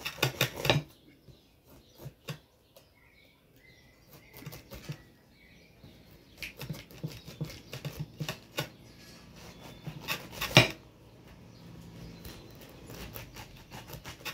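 Serrated knife sawing through a whole pineapple's rind and flesh: a string of short rasping strokes and clicks, with one louder knock about ten seconds in.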